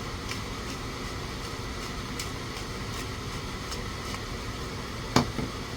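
Steady low room hum, with a few faint clicks and one sharp knock a little after five seconds in.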